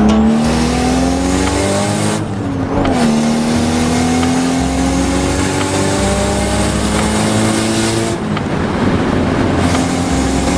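Car engine heard from inside the cabin, pulling hard through the gears at highway speed. The revs climb steadily, dip at a gear shift about two seconds in, climb again for about five seconds, and dip at a second shift near the end. A hiss rides over the engine and cuts out at each shift.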